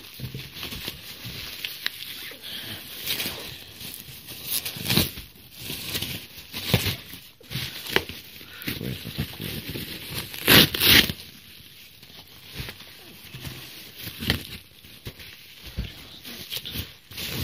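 Bubble wrap and plastic packaging being handled and unwrapped, with irregular rustling and crinkling. A pair of louder crackles comes about ten and a half seconds in.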